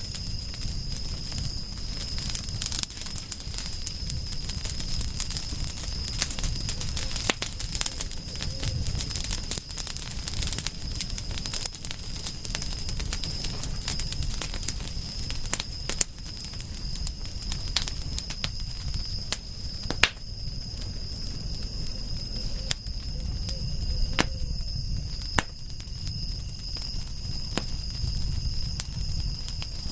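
Wood campfire crackling, with irregular sharp pops and cracks over a low, steady rumble of flames. A steady high-pitched insect trill sounds throughout underneath.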